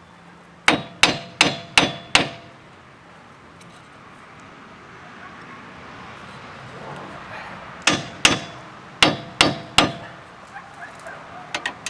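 Hammer blows on metal, as the new wheel bearing and hub assembly is driven into the steering knuckle to seat it. There are five quick blows about a second in, then two and three more in quick pairs and threes later on, with a few light taps near the end.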